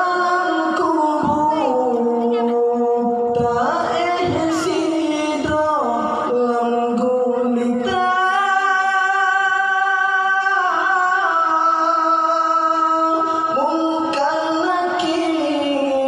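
A man's solo voice singing an Acehnese qasidah (devotional song) into a handheld microphone, with long held notes joined by ornamented glides up and down in pitch.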